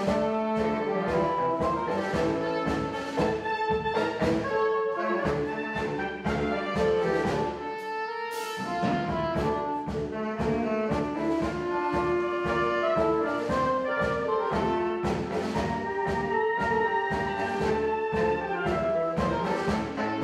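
Saxophone quartet, with a soprano saxophone among the saxophones, playing a melody in harmony over a steady drum-kit beat. The low end and drums drop out briefly about eight seconds in.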